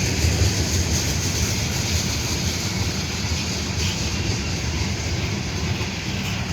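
A train passing, a steady low rumble with hissing rail noise that slowly fades.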